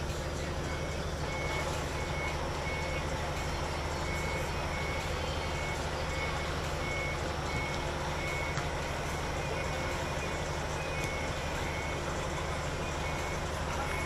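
Vehicle reversing alarm beeping steadily, short high beeps about every 0.7 seconds, over a steady low hum.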